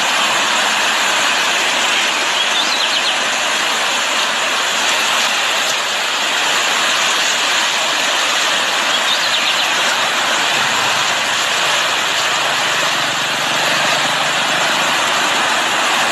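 Rushing floodwater: a loud, steady roar of fast-flowing, storm-swollen water.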